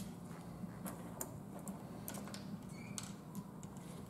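Small metal bolts, nuts and washers clicking faintly and at irregular times as they are handled and set down on a plywood workbench, over a low steady hum.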